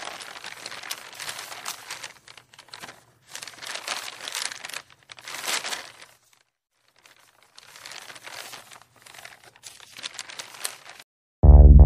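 Paper crumpling and rustling in several bursts, with a second-long silent gap about halfway through. Near the end, loud music starts abruptly.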